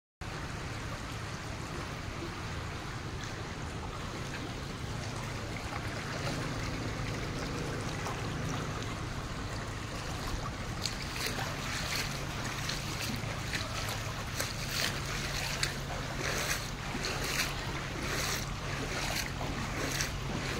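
Floodwater running and splashing over a rain-soaked street, with a steady low rumble of wind on the microphone. From about halfway in, short splashy hisses come every second or so.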